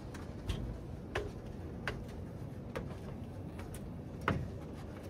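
Footsteps climbing steps up to a loft: a run of light knocks about one every three-quarters of a second, with a louder one near the end.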